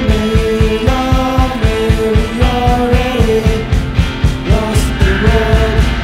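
A live rock band playing: a fast, driving drum beat under electric guitar and bass, with held melodic notes that change pitch about once a second.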